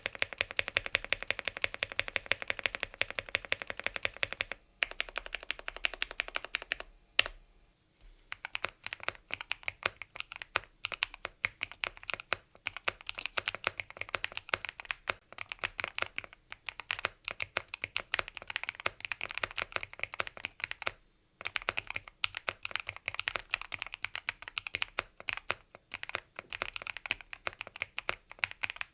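Fast typing on a Yunzii AL68 aluminium mechanical keyboard: a steady clatter of key clicks. It breaks off briefly twice in the first eight seconds, with one sharper click just after seven seconds, and pauses for a moment again about two-thirds of the way through.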